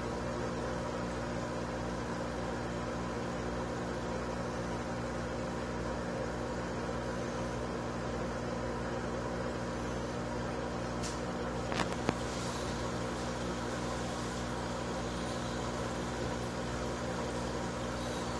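Aquarium pump humming steadily, a constant motor drone. Two sharp clicks sound briefly about two-thirds of the way through.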